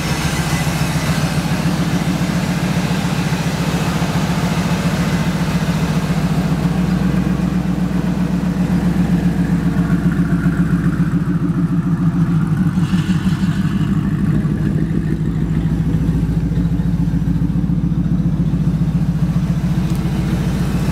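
Ford SVT Lightning's supercharged 5.4-litre V8 idling steadily, its exhaust pulsing evenly, a little louder about ten seconds in.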